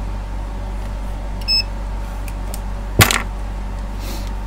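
Short electronic beep from a digital multimeter about a second and a half in, over a steady low electrical hum. A single sharp knock about three seconds in, as the test leads are handled on the bench.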